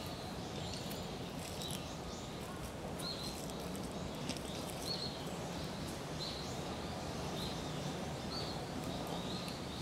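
Small birds chirping, short high notes repeated every second or so, over a steady low background hum of outdoor ambience.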